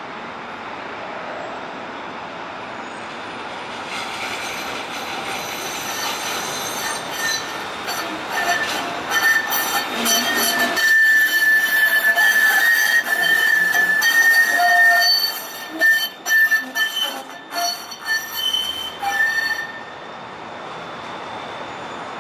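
A tram or light-rail train grows louder as it comes near, its steel wheels squealing on the rails in a high, steady screech for several seconds. Near the end the squeal breaks up into stuttering clicks.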